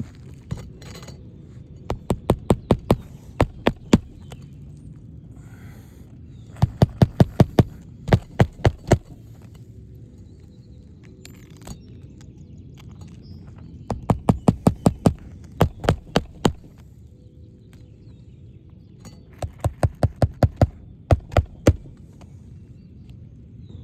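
Hammer driving roofing nails through a new asphalt shingle into the roof deck, in four bursts of quick blows, each about four strikes a second.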